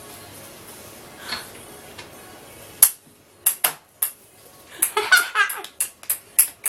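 Sharp clicks and taps: one about three seconds in, a few more shortly after, then a quick run of them near the end, with a brief voice-like sound just before the run.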